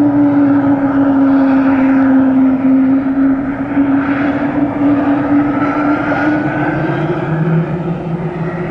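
Sikorsky S-92A helicopter's twin turboshaft engines running on the ground during startup, with the rotors turning: a loud turbine whine and rotor noise. A strong steady tone drifts slightly lower and fades out, a fainter whine rises midway, and a lower steady tone comes in near the end.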